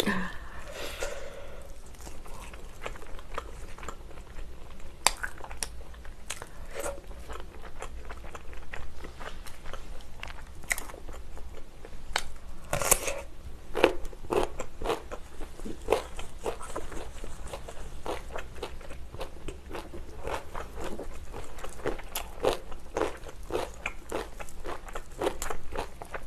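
Close-miked eating: irregular crisp bites, crunching and chewing of fried chicken, with wet mouth sounds between the bites.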